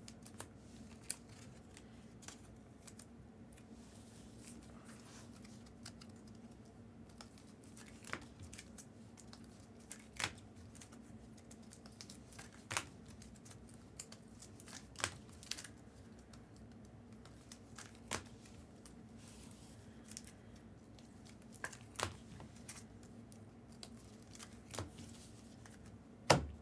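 Trading cards and their packaging being handled: about a dozen short, faint clicks and rustles spread irregularly over the stretch, over a faint steady low hum.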